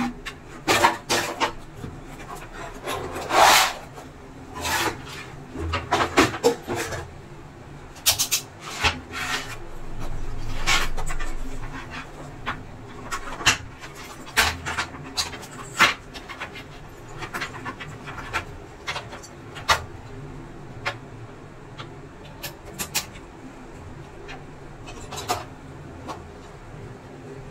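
Handling noise from the parts of an opened induction cooker: the plastic housing and copper coil assembly being moved about, with scattered clicks and knocks and stretches of rubbing and scraping. The handling is busiest in the first half and grows sparse later.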